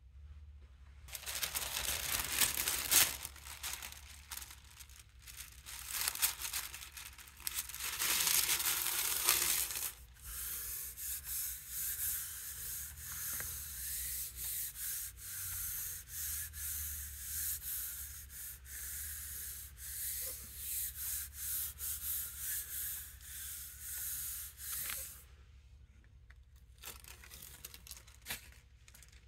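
Thin artist tissue paper being handled and laid over an inked gel printing plate, then rubbed down by hand in steady, rhythmic strokes, a dry paper swishing under the palm. Near the end, the tissue starts to crackle as it is peeled off the tacky plate.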